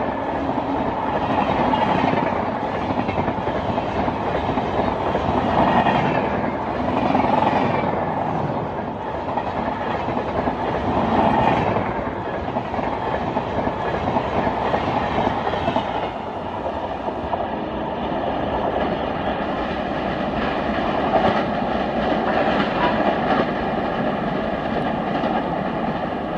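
LHB passenger coaches of an express train running past at speed: a steady rush of wheel and rail noise with rhythmic clickety-clack as the wheels cross rail joints. About two-thirds of the way through, a steady high whine joins in.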